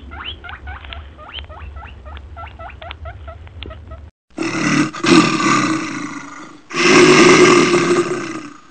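Short, high rising chirps, about three or four a second, over a low rumble; then two loud, harsh calls from a large animal, each lasting about two seconds and fading out.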